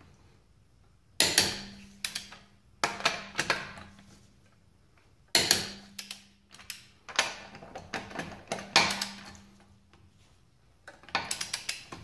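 Click-type torque wrench on wheel lug nuts: a series of sharp metallic clicks and clacks, a second or two apart, as each nut is brought to 80 foot-pounds and the wrench is moved from nut to nut, with a quicker run of small clicks near the end.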